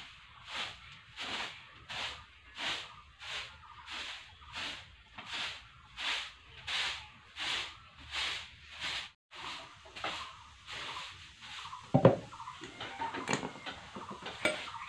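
Short-handled grass broom sweeping a concrete floor in regular strokes, about one and a half soft swishes a second, breaking off briefly after about nine seconds and going on less evenly. A single sharp knock about twelve seconds in is the loudest sound.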